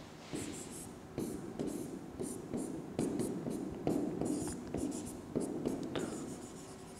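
Writing by hand: a run of short, irregular scratching strokes, starting about a third of a second in.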